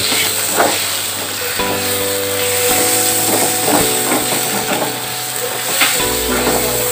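Onions and spice paste sizzling in hot oil in a kadai while a spatula stirs them briskly, scraping and knocking against the pan now and then. Soft background music plays under it.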